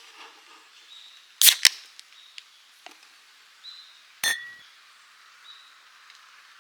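Two sharp clacks in quick succession, a few light ticks, then a single loud metallic clink that rings briefly, with short high chirps faint in the background.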